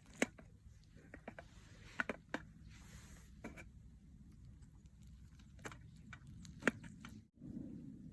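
Several light, sharp clicks and taps, scattered irregularly, over a steady low background rumble; the background drops out and changes abruptly about seven seconds in.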